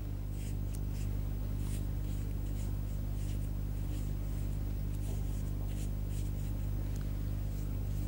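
A wet Chinese brush swishing softly across paper in a series of short strokes as a watery green wash is laid over painted leaves. A steady low hum runs underneath and is louder than the strokes.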